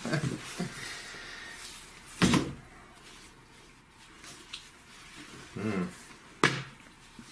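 A bundle of comic books being handled and unwrapped on a table: scattered rustling and light knocks, with one louder thump about two seconds in and a sharp click near the end.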